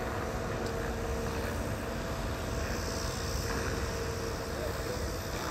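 Steady outdoor city ambience: an even wash of background noise with a faint steady hum, like distant traffic.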